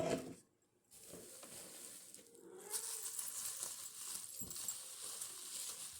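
Paper rustling and crinkling as a wrapped decoration is unwrapped by hand, growing louder about three seconds in.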